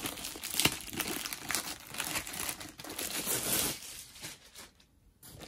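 Plastic packaging of a diamond painting kit crinkling and rustling as it is handled, a dense run of small crackles that eases off near the end.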